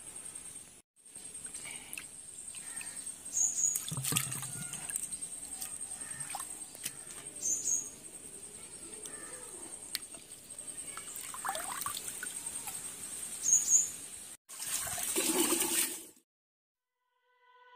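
Faint splashing and trickling of water as sardine pieces are washed by hand in a pan of water, with three short high chirps.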